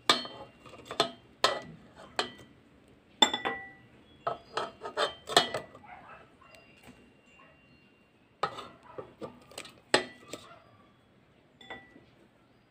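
Kitchen tongs clicking and clinking against an air fryer's basket and perforated crisper plate as cooked chicken pieces are picked up. The sharp, ringing clicks come in three bunches with short pauses between them.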